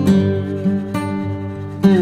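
Background instrumental music: plucked-string notes and chords ringing on.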